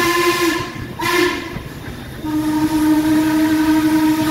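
Steam chime whistle of Baldwin 2-6-6-2 articulated locomotive 1309 blowing close ahead. A long blast ends about half a second in, then comes a short toot about a second in, and after a brief pause a long steady blast begins a little past two seconds. The pattern fits the close of a long-long-short-long grade-crossing signal.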